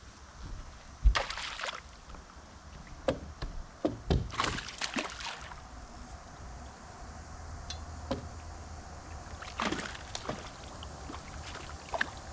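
Water sloshing against a small fishing boat: three short splashy washes a few seconds apart, with several sharp knocks on the hull in between.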